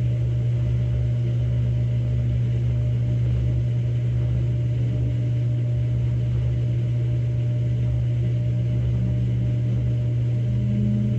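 Samsung Grande AI drum washing machine on its spin-only course, the drum spinning with a steady low hum.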